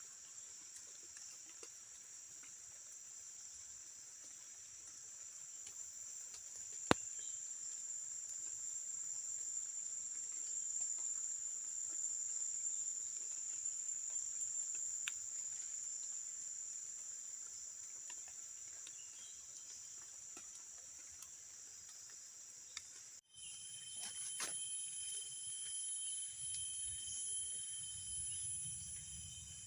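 Insects trilling in one steady, continuous high tone. After an abrupt cut about three-quarters of the way through, a different insect chorus is heard at several pitches at once, with a low rumble near the end.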